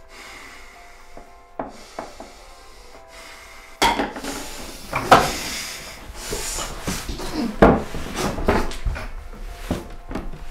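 A few soft clinks at a kitchen sink, then about four seconds in a sudden loud commotion: a man collapsing against wooden kitchen cupboards in a panic attack. Repeated knocks and rubbing mix with gasping breaths.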